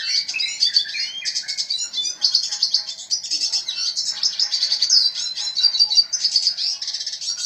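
Red siskin in full song: a continuous, rapid stream of high chirps, twitters and short trills with no pauses.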